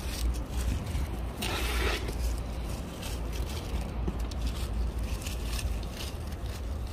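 Gloved hand scraping and gathering dry fallen leaves from gravelly soil, with rustling and crunching of leaves and grit and a louder scrape about one and a half seconds in. A steady low rumble runs underneath.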